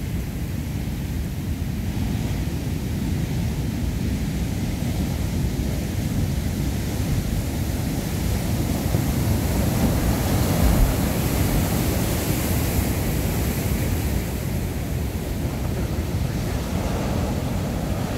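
Large ocean surf breaking against and beneath a pier: a steady, heavy low rumble of waves with wind buffeting the microphone. It swells to a louder crash with hissing spray about ten seconds in.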